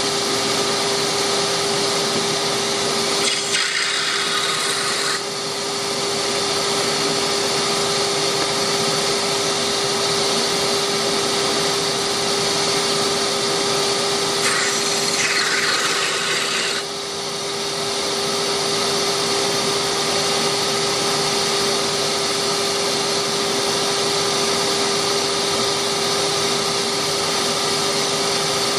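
Delta wood lathe running steadily with a constant motor hum. About three seconds in and again about fifteen seconds in, a tool bites into the spinning pen blank, each cut giving about two seconds of hissy cutting noise.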